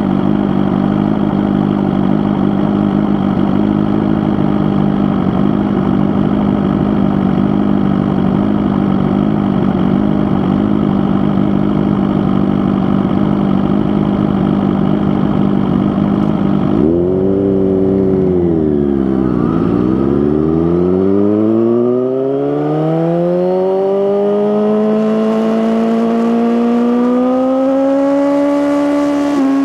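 Suzuki GSX-R1000R inline-four running through an Akrapovic slip-on exhaust. It holds a steady note for a while, then about two-thirds of the way in the revs drop sharply and rise steadily again as the bike accelerates.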